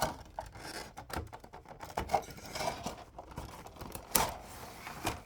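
Irregular clicks, taps and rustles of a diecast model car's cardboard and plastic packaging being handled and opened, with a sharper knock about four seconds in.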